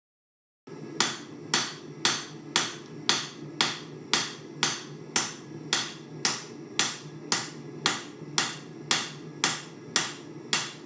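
Hammer blows on hot steel against an anvil, forging a knife blank made from an old farrier's rasp: sharp, evenly paced strikes about two a second, each ringing briefly, over a steady low rumble. The sound starts abruptly just under a second in.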